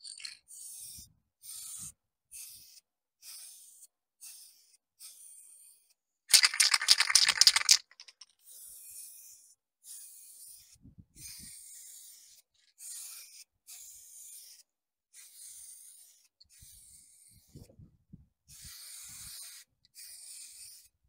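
Aerosol spray-paint can hissing in short repeated bursts, about one a second, as a base coat is misted onto paper. About six seconds in there is a louder, rattly burst of noise lasting about a second and a half.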